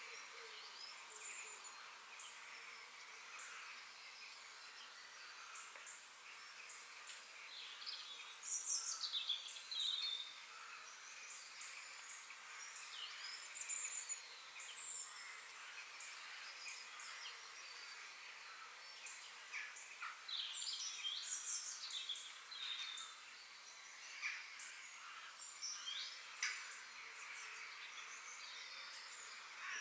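Forest ambience: several small birds chirping and calling in short, high notes over a steady background hiss. The calls are busiest about eight to ten seconds in and again around twenty seconds in.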